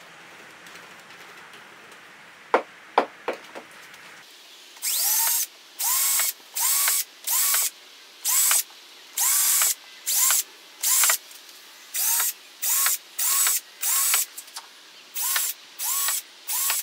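Cordless drill run in short trigger bursts of about half a second, roughly one a second, its motor whining up at the start of each burst. A few sharp knocks come a couple of seconds before the first burst.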